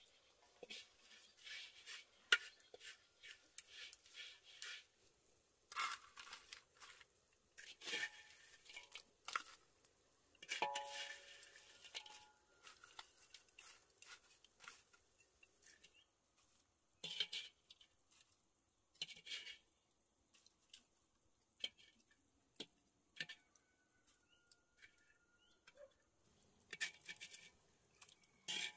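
Wooden chopsticks tapping and scraping in a black wok as white coconut strips are lifted from a woven tray and dropped into the pan. Faint, irregular clicks and scrapes with short pauses between them.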